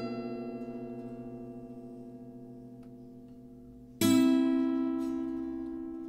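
Background music on plucked strings: a chord rings and slowly fades, then a new chord is plucked about four seconds in.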